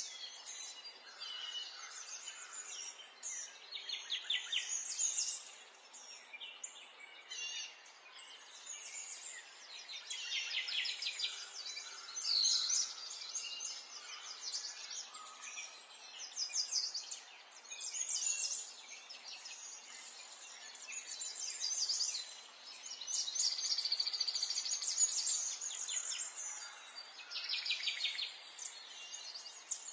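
Several birds singing and calling, with rapid trills and chirps one after another, over a faint steady background hiss.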